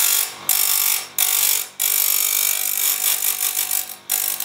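Einhell GC CS 235 E chain sharpener's Stihl grinding wheel grinding a saw-chain cutter tooth: a harsh, hissing metal-on-abrasive grind in several passes broken by short gaps, with the sharpener's electric motor running underneath.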